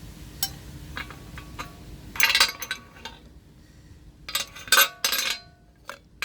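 Metal fragments and chunks of engine debris clinking and scraping against each other and against metal as they are handled and sorted, in several bursts of sharp clinks. The debris comes from an engine whose bearings wore away and broke up, the cause of its knocking.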